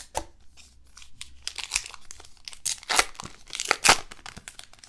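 A trading-card pack wrapper being torn open and crinkled by hand: a run of crackling rips, loudest about three and four seconds in.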